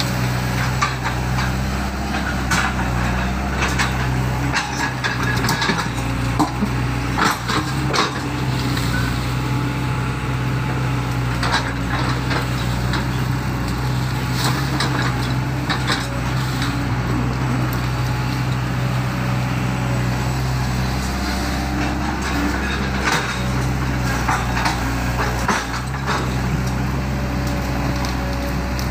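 Excavator's diesel engine running steadily, with scattered knocks and cracks from the machine working.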